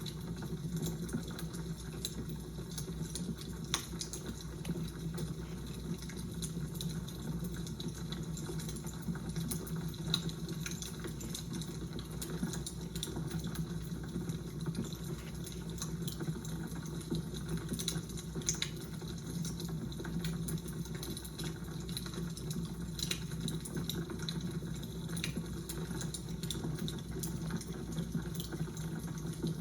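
Fire crackling: irregular small pops and snaps scattered throughout, over a steady low hum.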